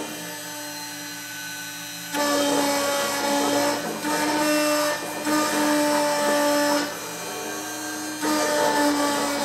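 CNC engraving machine's spindle whining as its cutter engraves letters into a sign plate. It is quieter for the first two seconds, then louder while cutting, dropping back briefly a few times.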